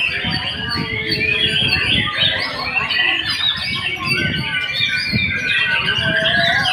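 White-rumped shama (murai batu) song: a dense, unbroken run of quick, varied whistles and chattering phrases, mixed with other birds singing, over a low background rumble.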